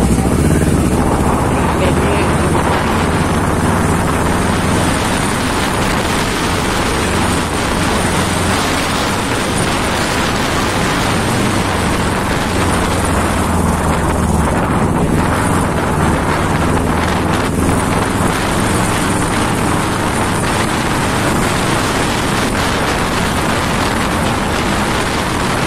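Sport motorcycle under way at road speed, its engine running steadily beneath a constant rush of wind on the microphone.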